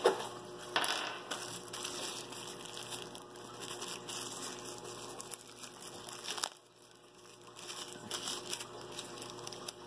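Plastic bag crinkling and rustling as hands handle it, with many small clicks and taps of packaging. There is a sharp click right at the start, and it goes quieter for about a second around two-thirds of the way through.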